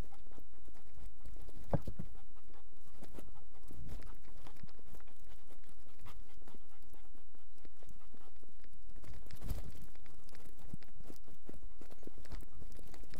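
Search-and-rescue dog panting while it moves and searches, picked up close by a microphone worn on the dog. Under this runs a steady low rumble, with irregular knocks and rustles of the wearable, the loudest about two seconds in.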